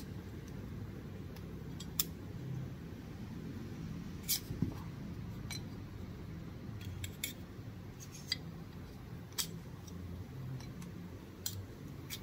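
A hand scraper prying small resin calibration prints off a 3D printer's build plate, with scattered sharp clicks and ticks as the blade catches and the prints snap loose. At a 32-second bottom exposure the prints are still stuck quite hard.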